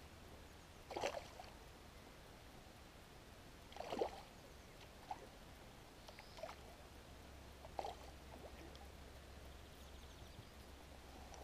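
A small hooked asp splashing at the water's surface as it fights on the line: three short splashes, about a second in, about four seconds in and near eight seconds, with smaller splashes between them.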